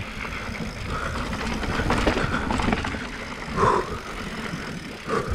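Mountain bike ride noise on a dusty, rocky downhill trail: tyres running over loose dirt and rock, the chain and frame rattling, and wind rumbling on the microphone. Two brief louder sounds stand out, about three and a half seconds in and again near the end.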